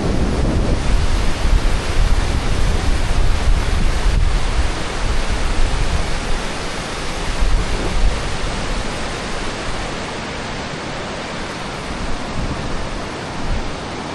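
Waterfall water rushing steadily. Wind buffets the microphone for the first half and eases off after about nine seconds.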